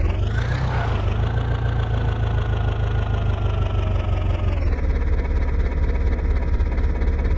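Tractor diesel engine running steadily with a low rumble. A faint whine above it drops in pitch about four and a half seconds in.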